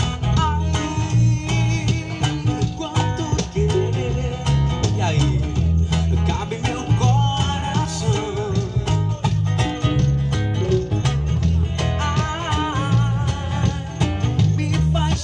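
Music with a steady beat and heavy bass, with guitar and a voice singing over it.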